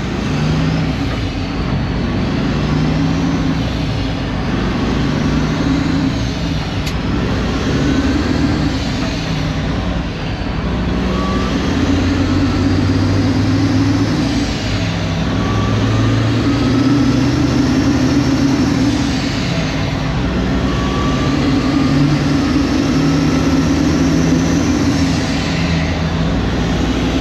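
Truck engine and road noise heard from inside the cab while driving, the engine note shifting up and down several times.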